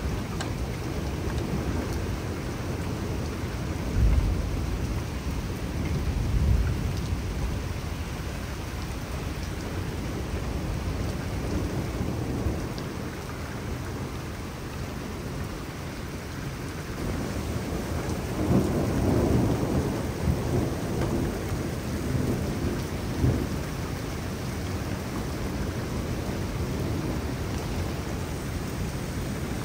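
Steady rain falling through a thunderstorm, with thunder rolling: two low booms about four and six seconds in, and a longer roll a little past halfway with a few sharper cracks in it.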